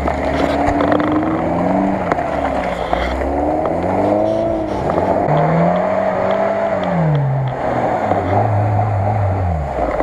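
Lada Niva engine revving up and down as the 4x4 pushes through deep mud, its pitch rising and falling several times and settling lower near the end.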